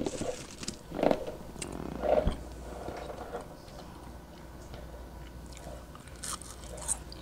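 A person chewing and biting into a ketchup-dipped french fry close to the microphone, with two crisp bites near the end.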